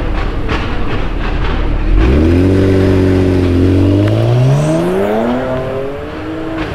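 A BMW performance car's straight-six engine and exhaust: a low rumble with crackles, then the car accelerates hard about two seconds in, its engine note climbing steadily for a few seconds before levelling off.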